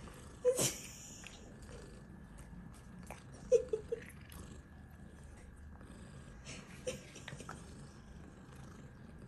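Cats purring steadily after eating treats, with faint scattered clicks of lip-licking. A sharp short sound about half a second in and a quick cluster of three short, pitched sounds about three and a half seconds in stand out above the purring.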